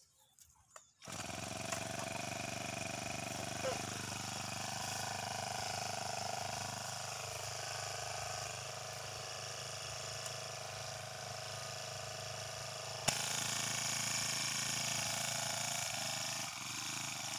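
Petrol brush cutter's small engine running steadily at working speed as it cuts through tall grass, starting about a second in.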